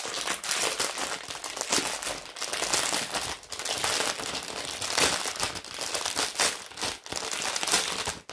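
Clear plastic packaging crinkling steadily as packets of diamond painting drills are handled and turned over.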